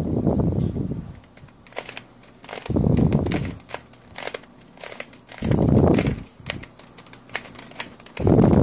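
Plastic skewb-type twisty puzzle (a Wolf Tooth Cube) being turned by hand, its pieces giving quick clicks and clacks as the layers rotate. Louder low, muffled rushes of noise come about every three seconds, four times.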